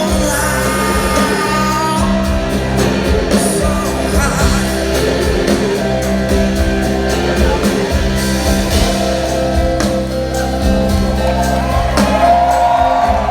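Live blues-rock band playing with singing and guitar, loud and steady, in a large hall.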